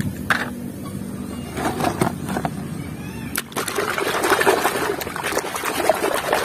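Plastic toy vehicles clicking and knocking together as they are picked from a pile. About halfway through, a hand starts sloshing and scrubbing in a basin of foamy, muddy water.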